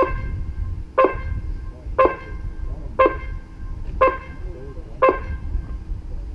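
Six short electronic beeps, one a second, from the race timing system over the loudspeakers, stopping about five seconds in, over a low background rumble.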